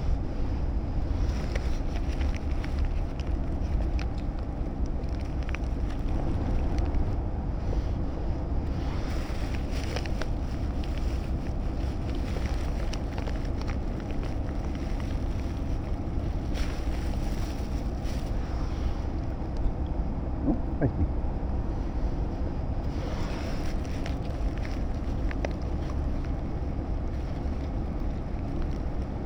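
Steady low wind rumble buffeting the microphone, with a few faint clicks now and then.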